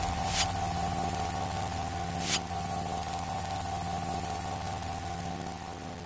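A steady electronic drone over a hiss, with two short whooshes about half a second and two and a half seconds in, fading out near the end.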